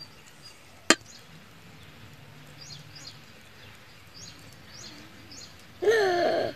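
An egg knocked once against the rim of a stainless steel plate to crack it: a single sharp click about a second in, with faint bird chirps behind. Near the end comes a brief loud wavering cry.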